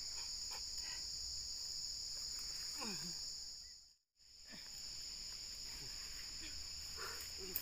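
Chorus of insects shrilling steadily at a high, even pitch, cutting out briefly around the middle and then resuming.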